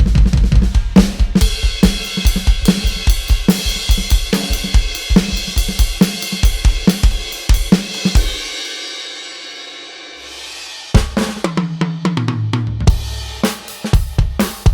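Roland TD-316 electronic drum kit played through its V31 module's preset sounds. A very rapid run of bass-drum strokes gives way to a beat with snare, hi-hat and cymbals. About eight seconds in, a cymbal rings out and dies away, then a tom fill falls in pitch and the drumming picks up again.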